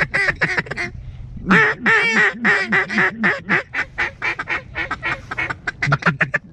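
Ducks quacking close by: a run of about eight loud quacks, then a fast chattering run of short notes that stops shortly before the end.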